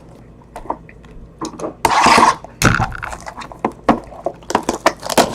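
Trading cards and their plastic packaging being handled: a run of light clicks and crackles, with a louder rustle about two seconds in.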